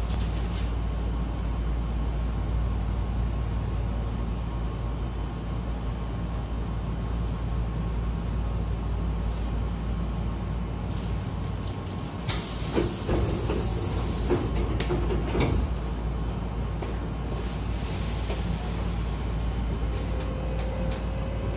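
Hankyu commuter train car standing at a platform with a steady low hum, then about twelve seconds in a burst of air hiss and a few clunks as the doors slide shut. A few seconds later there is another hiss of air, and near the end a faint rising whine starts as the train begins to move off.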